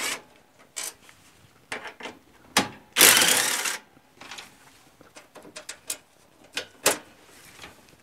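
Cordless power driver spinning out the bolts of a lawn tractor's plastic fender panel in short runs, the longest lasting almost a second about three seconds in, followed by scattered clicks and taps of the tool and panel being handled.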